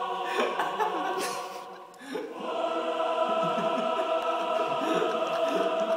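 Choral music: a choir holding long chords, dropping away briefly about two seconds in before the chords swell back.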